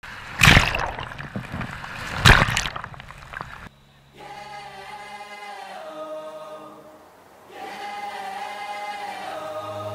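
Shallow surf washing over and around the camera, with two loud surges of water in the first three seconds; it cuts off just before four seconds in. Held choir-like vocal chords of a music intro follow.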